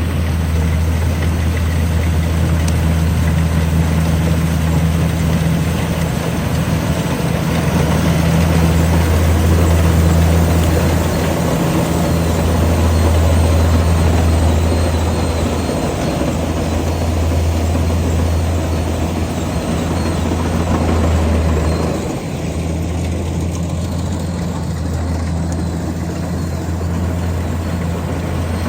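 Combine harvester's diesel engine running steadily under load with a deep, even hum, its loudness swelling and easing a little and dropping slightly about three-quarters of the way through.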